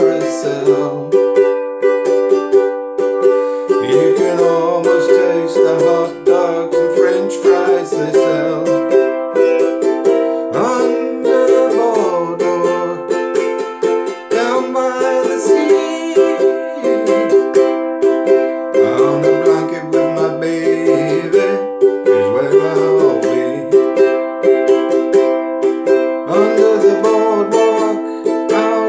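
Ukulele strummed in a steady rhythm, with a man singing along.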